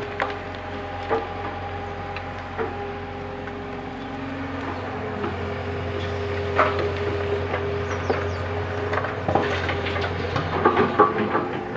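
A JCB 3DX backhoe loader's diesel engine running steadily with a held tone. Scattered knocks ring out over it, and clattering grows denser in the last few seconds as it works the soil.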